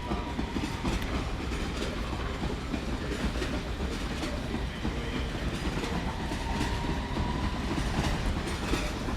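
London Underground District line tube train running out of the station, a steady rumble of wheels on track with faint clicks. A faint whine rises slowly around six seconds in.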